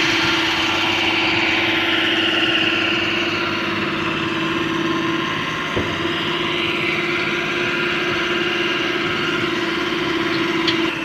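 Diesel tipper truck engine held at steady raised revs while it drives the hydraulic hoist that lifts the dump body to tip its load of soil. A single short knock about six seconds in.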